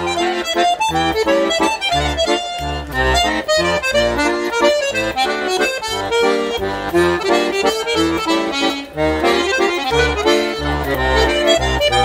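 Accordion playing a quick, many-noted melody over a regular bass accompaniment: the instrumental break of a French musette-style song.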